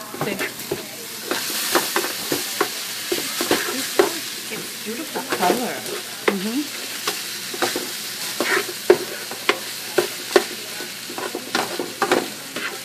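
Cooked fish and vegetables sizzling in a frying pan while a utensil stirs them, knocking and scraping against the pan many times.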